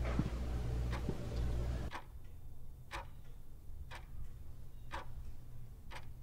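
A clock ticking about once a second. A low hum underneath stops about two seconds in.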